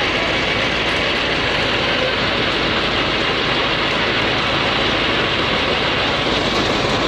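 Fire truck running with a steady, even rushing noise that holds at one level and has no clear tone or knocks.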